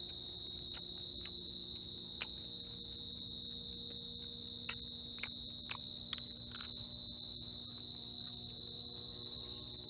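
Steady high-pitched drone of insects in the surrounding forest, unbroken throughout, with a scatter of short soft clicks.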